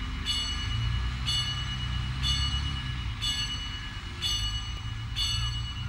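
Diesel engine of a Danish Y-train railbus running with a low rumble, while a bell strikes about once a second over it.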